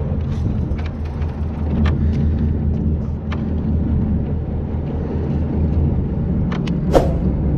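Small boat engine idling with a steady low hum, with scattered light clicks and knocks and one sharp click about seven seconds in.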